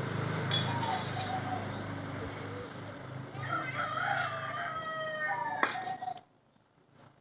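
A rooster crowing once: a long, wavering call about three and a half seconds in, over a steady low hum. The sound cuts off suddenly about six seconds in.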